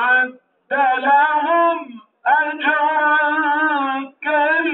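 A single voice singing an Islamic devotional hymn in long held notes that waver and turn, with short breaks for breath between phrases.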